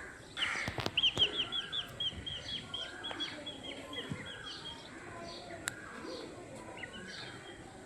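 Small birds chirping in the background, a fast string of short high chirps several times a second, loudest in the first two seconds. A few sharp clicks stand out about a second in and again near six seconds.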